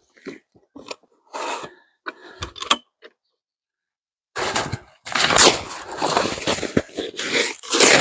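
Short rustles and crunches as gear is handled at a sled, a brief pause, then from about four and a half seconds in, loud crunching and scraping of snow as snowshoes step through it and a snow shovel digs into the snowpack.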